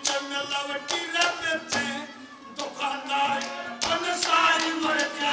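Haryanvi ragni folk music: sustained melodic notes over repeated drum strokes.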